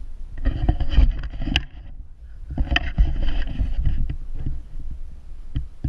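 Bicycle and its mounted camera rumbling and rattling over rough paving, in two bursts of about a second and a half, with a sharp knock near the end.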